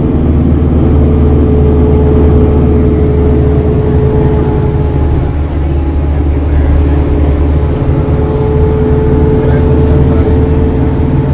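Steady drone of a vehicle's engine at an even speed, its pitch unchanging.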